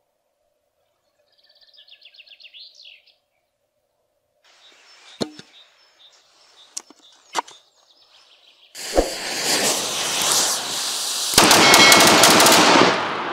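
Miniature rocket launcher firing a salvo: a sudden loud rushing hiss of rocket motors breaks in about nine seconds in and grows louder with rapid pops a couple of seconds later. Before it, a bird chirps briefly and there are a few sharp clicks.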